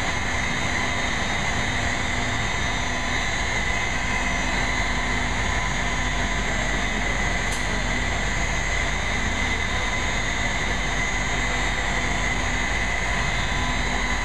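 Steady machinery drone with a constant high whine, running evenly without rising or falling.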